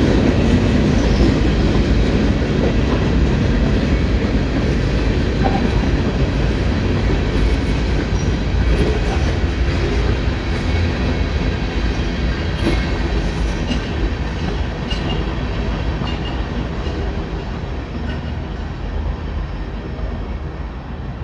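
Union Pacific manifest freight train's cars rolling past, a steady rumble of steel wheels on the rails that slowly grows quieter.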